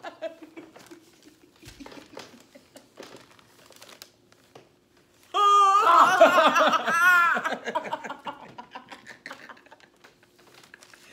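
A woman's loud, high-pitched shriek of laughter, wavering in pitch, breaking out about five seconds in and lasting two or three seconds; before it only soft clicks and rustling.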